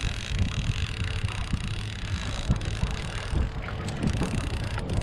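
Wind buffeting the microphone over choppy water lapping around a small boat, as an irregular low rumble with a faint steady hum underneath.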